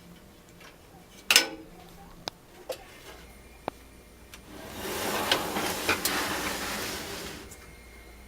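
Hands working cables and connectors inside a computer case: a sharp click with a brief ring, a few small ticks, then about three seconds of rustling with clicks in it.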